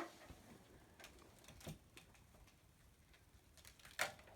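Near silence broken by a few faint clicks and taps of a kitten eating, with one sharper click about four seconds in.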